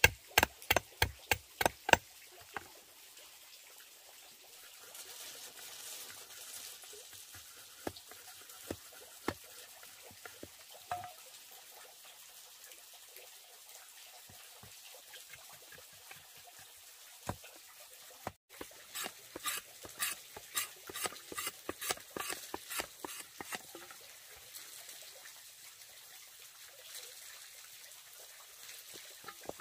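Machete blade chopping at a bamboo tube on a wooden board: a quick run of sharp knocks, about four a second, for the first two seconds, then scattered knocks, then a second, lighter run of strokes about two-thirds of the way through. Water trickles steadily behind.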